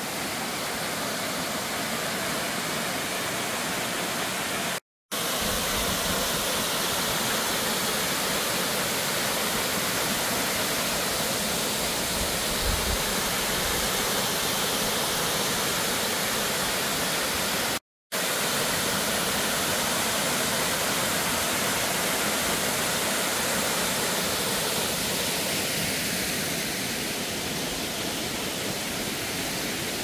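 A waterfall's steady rush of falling water, an even wash of noise with no pauses in the flow. The sound cuts out to silence for a moment twice, about five seconds in and again about eighteen seconds in.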